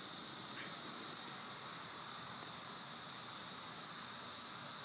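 A steady high-pitched hiss with no distinct events, at a moderate background level.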